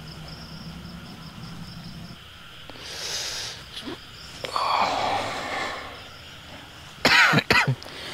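A hoarse voice making coughing, wheezing cries, two loud ones with falling pitch near the end, after a couple of breathy whooshing hisses.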